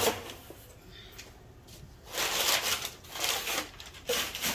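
Crumpled brown kraft packing paper rustling and crinkling as it is pulled out of a cardboard box, in three bursts from about two seconds in.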